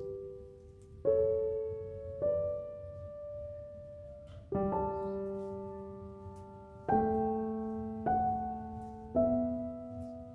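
Background music: a slow, gentle piano-style melody, with single notes and chords struck every second or two and each left to ring and fade.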